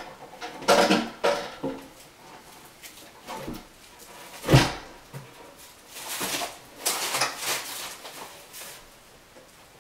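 A bathroom vanity top being set down on the glued cabinet and shifted into place: scraping and knocking, with one heavy thump about four and a half seconds in.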